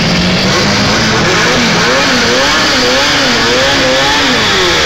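Two drag-race cars launching from the line and accelerating down the strip at full throttle, engines loud, their pitch rising and then wavering up and down through the second half.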